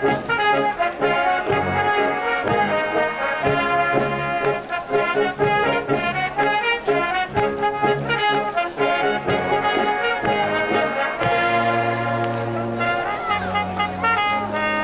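A brass band plays a tune with cornets and trombones over a steady drum beat. About eleven seconds in, the beat stops and the band holds long sustained chords.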